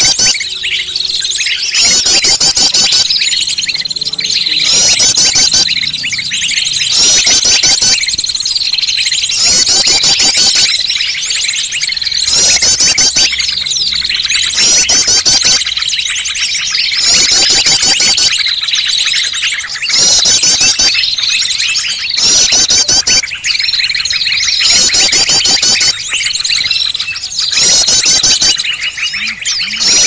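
Bird-lure recording of many small songbirds' high chirps and rapid trills layered together, coming in loud repeating bursts about every two seconds over a steady high whistling tone.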